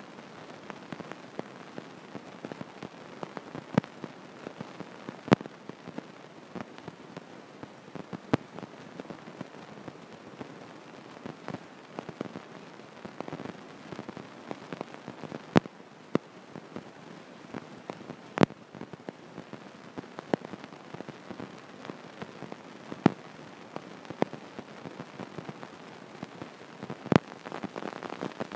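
Stylus tapping and scraping on an iPad's glass screen while drawing, with sharp taps at irregular intervals over a steady hiss.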